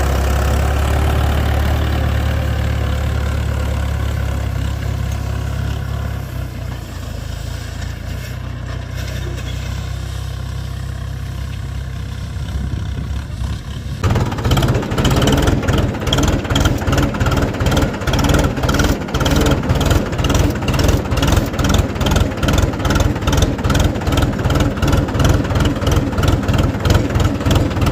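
Tractor's diesel engine running through a modified silencer: a steady low idle, then about halfway through it turns abruptly louder into a rapid, pulsing exhaust beat.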